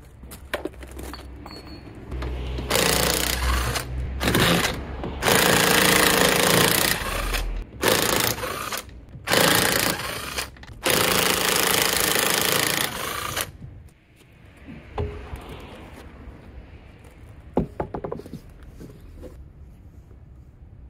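Impact wrench on wheel nuts, running in about six bursts of one to two and a half seconds each, followed by a few light clicks and knocks.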